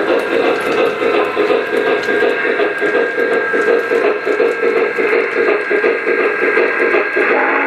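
Lionel O-gauge Union Pacific Challenger model steam locomotive running with its chuffing steam sound and the rumble of its wheels on three-rail track. Near the end its whistle starts, a steady chord of tones.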